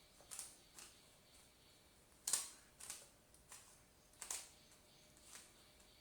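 Plastic Rubik's cube being twisted by hand, its layers clicking as they turn: about eight short, sharp clicks at irregular spacing, the loudest a little over two seconds in.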